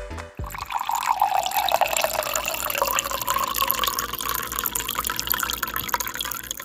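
Water poured from a jug into a drinking glass, a steady splashing pour whose pitch rises over the first few seconds as the glass fills, then holds.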